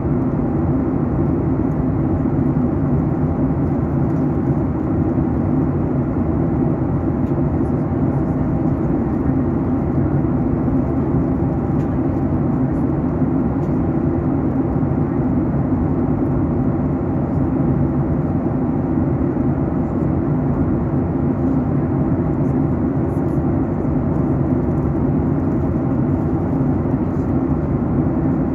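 Steady cabin noise inside a Boeing 737 MAX 8 airliner during descent: a constant low rush of airflow over the fuselage mixed with the drone of its CFM LEAP-1B turbofan engines.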